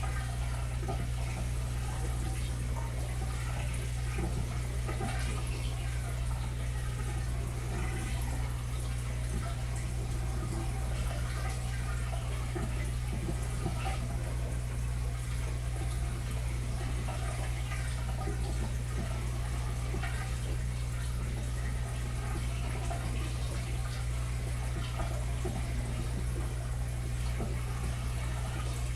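Water circulation in a 200-gallon aquarium: a steady low pump hum under continuous trickling and splashing water.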